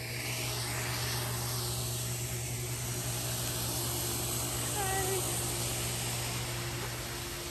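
Two outdoor air-conditioner condenser units running: a steady fan rush over a low hum. A short faint chirp about five seconds in.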